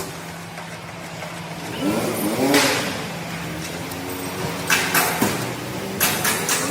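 Motor vehicle engine running steadily, revving up briefly about two seconds in, with a few sharp knocks later on.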